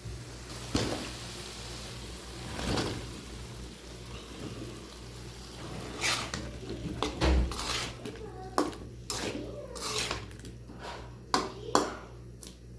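Cooking utensils clattering against pots and pans: scattered sharp knocks and clinks, coming thick and fast in the second half.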